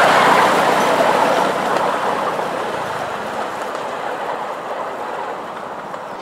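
7¼-inch gauge miniature railway train rolling away along the track. Its steady noise is loud at first and fades gradually as it recedes.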